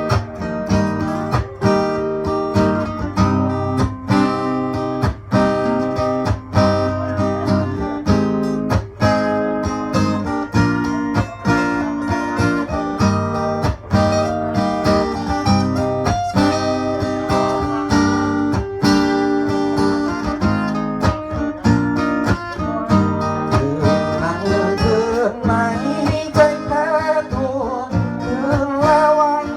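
Instrumental break of a song: guitar-led band music over a steady beat.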